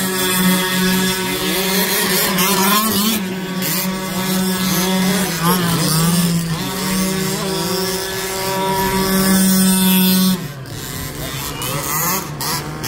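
Small two-stroke petrol engines of 1/5-scale RC cars running on a dirt track, one held at a steady high rev for most of the time while another revs up and down over it, with the steady note backing off about ten seconds in.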